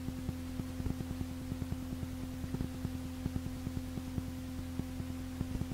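A steady low hum, a held tone that does not change, with frequent faint crackling clicks over it.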